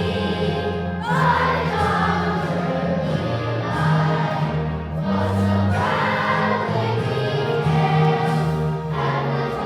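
Children's choir singing with a sustained instrumental accompaniment.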